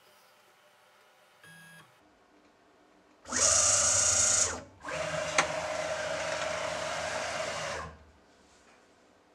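A home-built CNC milling machine's axes, driven by closed-loop stepper motors through belts and ball screws, traversing in two powered moves: a loud one of about a second, then after a brief break a quieter, steady three-second move with a held whine and one sharp click partway through.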